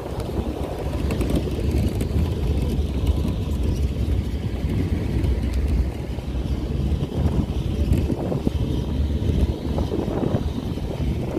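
Wind buffeting the microphone over the rumble of a pickup truck driving on a dirt road, heard from the open truck bed: a steady low rushing noise.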